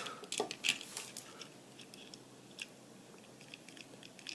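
A handful of faint clicks and taps from a small die-cast toy car being handled and pressed down to test its sprung suspension, clustered in the first second and again near the end.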